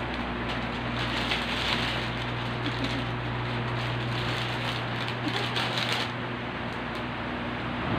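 Thin plastic bag crinkling and rustling as a cat climbs into it, stopping about six seconds in. A steady low hum underneath.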